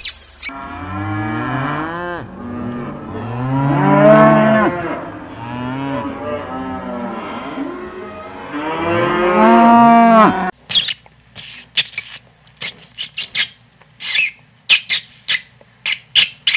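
Dairy cows mooing: several long, drawn-out calls that bend up and down in pitch, one after another. About ten seconds in this gives way to a quick run of short, high squeaks from pet rats.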